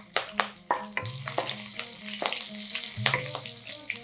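Curry leaves and green chillies sizzling in hot oil with mustard and cumin seeds in a kadai, being stirred with a spatula. There are a steady hiss and many sharp clicks and scrapes.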